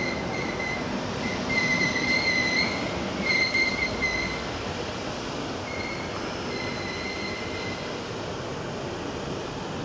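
Wheels of a double-deck Sydney suburban electric train squealing as it rolls past, over the steady rumble of the train. The high-pitched squeal comes and goes: loudest in the first four seconds, and again from about six to eight seconds in.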